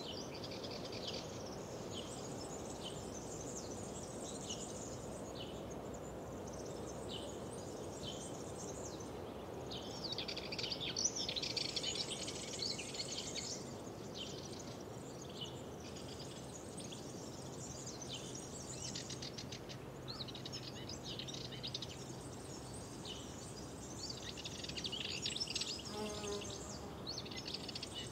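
Wild songbirds singing and chirping over a steady low background hiss, with denser bursts of song about ten seconds in and again near the end.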